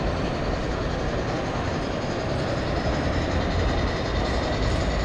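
Model train running on a layout, with the steady hubbub of a busy exhibition hall behind it.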